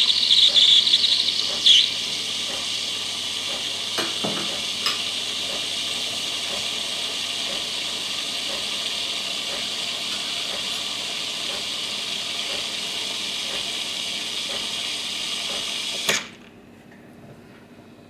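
Bosch VeroCafe Latte coffee machine's milk frother dispensing frothed milk, a steady hiss that is louder for the first couple of seconds. It cuts off suddenly about sixteen seconds in as the milk stops flowing.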